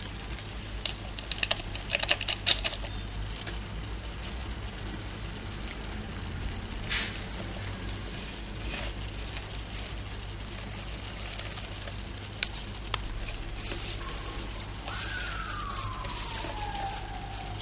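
Hands kneading flour into a soft cookie dough in a plastic bowl, with a few sharp clicks about two seconds in. Near the end a single siren-like tone slides slowly down in pitch.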